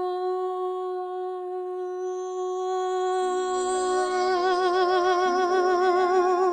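A woman's singing voice holding one long sustained note, steady at first and then widening into vibrato about four seconds in. Soft backing music comes in underneath about three seconds in.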